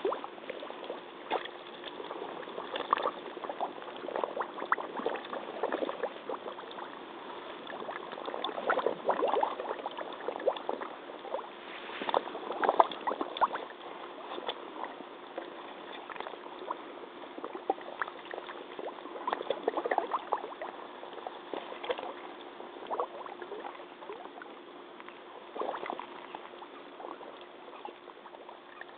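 Muddy water sloshing and lapping around rubber hip waders as the wearer stands and shifts in it, with irregular splashy surges every few seconds and bubbles gurgling up. Heard close and thin through a flip phone's microphone at the water's edge.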